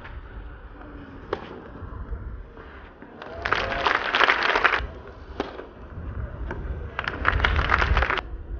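A tennis racket strikes the ball once, about a second in. Spectators then clap in two short bursts: one around the middle and a second, slightly shorter, near the end.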